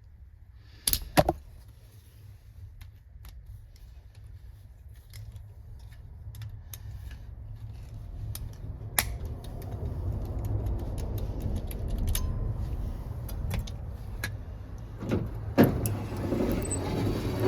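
Door window of a 1978 Ford F-100 being run up and down on its newly riveted regulator: the glass and mechanism rattle and slide in the door, with a couple of sharp clicks about a second in and a rumble that slowly grows louder.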